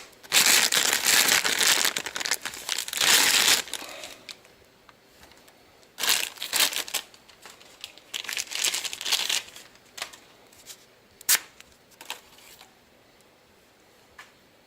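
Packaging crinkling and rustling in bouts as a lathe tool holder is unwrapped, loudest over the first few seconds, then in two shorter bouts; a single sharp click comes about eleven seconds in.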